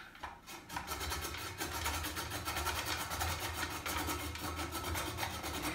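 Hand-cranked rotary drum grater shredding a carrot: the crank turning steadily, with a quick, even clicking and grinding that builds up in the first second.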